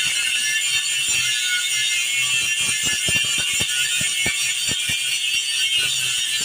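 Angle grinder cutting metal: a steady high hiss and whine, with scattered light ticks.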